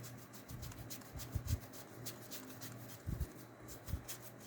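Trading cards being slid off a stack one by one by hand, a light rasp about four times a second, with a few soft thumps of handling.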